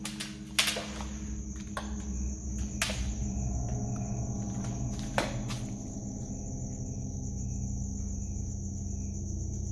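Crickets chirring steadily, with a few sharp knocks or footfalls on debris scattered through the first half and a low steady rumble underneath.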